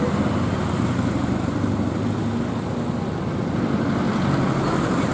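Tour bus driving past: its engine running steadily under tyre and traffic noise.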